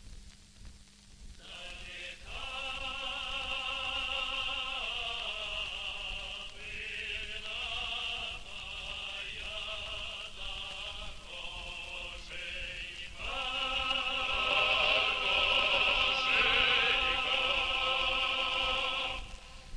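Operatic singing voice with strong vibrato in a slow melody, part of a film score. It enters about a second and a half in, eases off briefly, and swells louder about thirteen seconds in.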